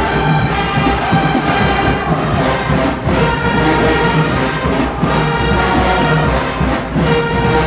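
Marching band brass section playing loud, sustained chords, backed by the drum line.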